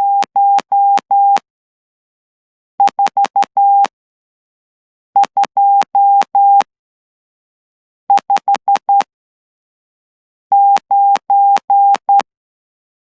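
Morse code hand-sent on a straight key at about 12 words per minute, heard as a steady mid-pitched electronic sidetone beep keyed on and off. It comes as single five-element characters, the Morse numerals, each a couple of seconds apart. A faint click marks each start and stop of the tone.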